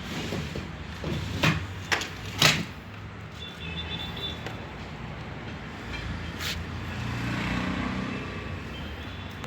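Sharp clacks of powder-coated aluminium colour samples being handled: three close together, then one more a few seconds later, over a steady low rumble.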